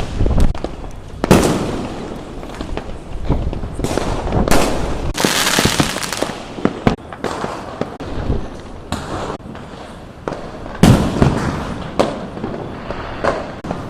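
Fireworks going off in a rapid, irregular string of bangs with crackling in between, the loudest bursts about a second in, in the middle, and about eleven seconds in.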